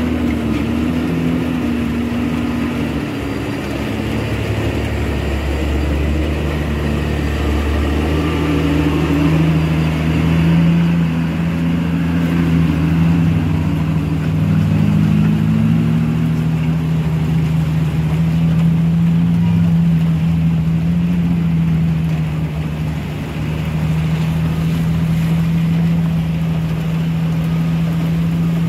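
Tanker truck's diesel engine labouring up a steep, wet climb, a loud steady drone. Its pitch wavers up and down in the first half, then holds steady from about halfway through.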